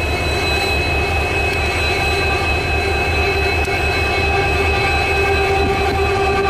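Indian Railways locomotive running close by: a steady whine of several held tones that keeps one pitch, over a low rhythmic throb.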